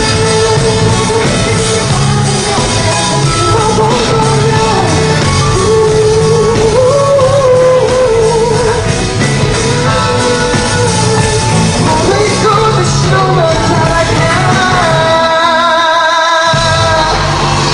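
Male pop vocalist singing live over loud backing music with a steady beat and bass. About fifteen seconds in the beat drops out for a moment while he holds one note with vibrato, then the music comes back in.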